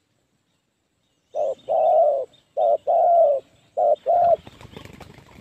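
Spotted dove cooing: three phrases, each a short note followed by a longer, slightly falling note, then a faint scratchy rustling near the end.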